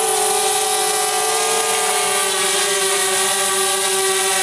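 DJI Spark drone hovering close by, its four motors and propellers giving a steady buzzing hum with a high whine over it, the pitch wavering slightly. The aftermarket (KW) propellers are on and it is holding a normal, steady hover.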